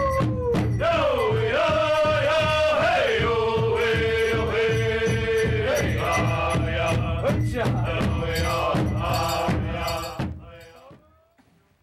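Native American powwow drum group: several singers chanting together over steady, even beats struck on a large shared drum. The drumming and singing fade out near the end.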